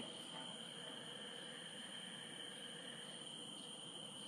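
Faint night chorus of calling frogs and insects: a steady, high-pitched trilling that keeps up without a break.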